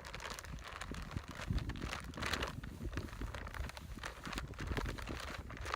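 Feed sack rustling and crinkling in short, irregular crackles as it is swung and flapped around a horse.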